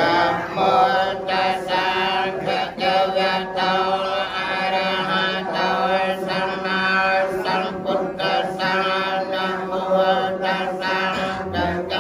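Buddhist monks chanting Pali verses in a steady, sustained melodic recitation.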